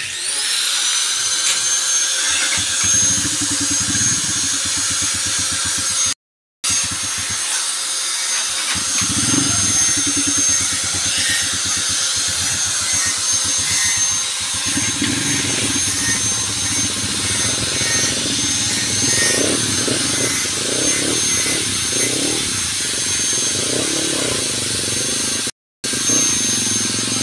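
High-speed electric power tool motor with a steady high whine and grinding noise under it. It spins up at the start and winds down at the end, and the sound breaks off briefly twice.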